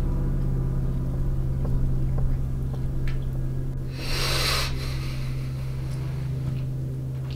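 A steady low hum, with a brief hiss about four seconds in.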